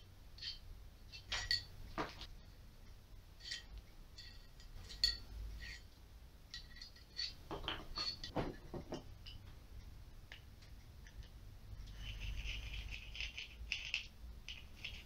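Light metal clicks and clinks as the aluminium blocks, steel guide rods and small parts of a dowelling jig are handled and knocked together on a workbench, with a stretch of rubbing or rustling near the end.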